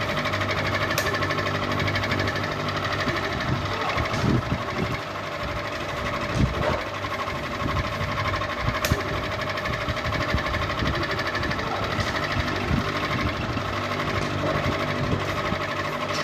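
Ceiling fan running noisily: a steady hum with a fast mechanical rattle, and a few sharp clicks.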